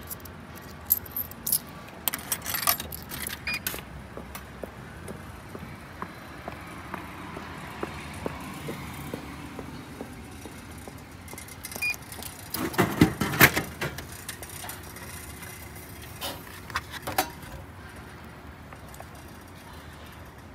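Drink vending machine in use. Coins clink into the slot a second or two in. About twelve seconds in, a can drops into the dispenser bin with a heavy clunk and rattle. A few more clicks follow a few seconds later, as the bin flap is opened.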